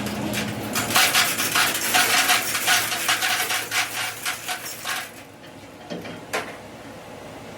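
Rapid metallic tapping and clinking, metal striking metal, for about four seconds, then quieter with a single sharp click near the end.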